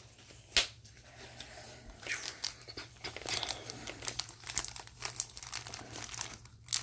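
Plastic wrapping on Upper Deck hockey card packaging crinkling and tearing as it is ripped open, with a sharp click about half a second in and dense crackling from about two seconds in.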